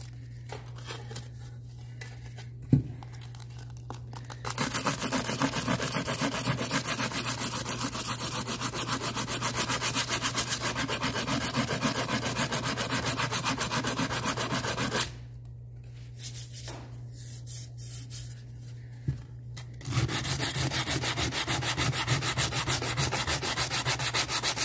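80-grit sandpaper on a hand Durablock sanding block rubbed back and forth over an aluminum trim molding, block-sanding it to find the high and low spots. The rapid strokes start about four seconds in, stop for a few seconds, and start again near the end. A single sharp knock comes about three seconds in.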